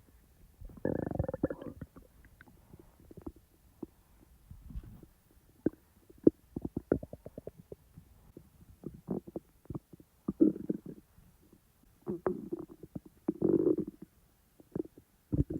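A human stomach gurgling and rumbling with digestive noise, in irregular bursts: longer gurgles about a second in and several more near the end, with many short pops in between.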